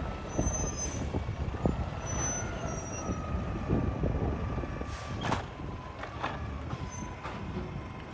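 Mack cab-over automated side-loader garbage truck's diesel engine running as it rolls up, with a steady whine that sinks slowly in pitch and short sharp air-brake-like sounds about five and six seconds in. Near the end its automated arm is lifting a cart.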